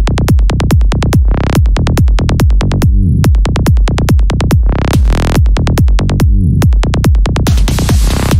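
Electronic dance music with a fast, heavy pulsing beat, two rising sweeps, and a hissing build-up near the end.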